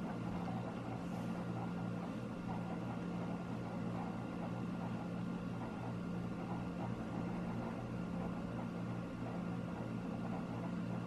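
A steady low hum with a faint hiss, unchanging throughout, with no distinct events.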